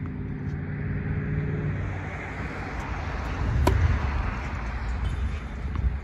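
Steady low rumble of road traffic and wind on the microphone, with a vehicle engine hum in the first two seconds and one sharp knock about three and a half seconds in.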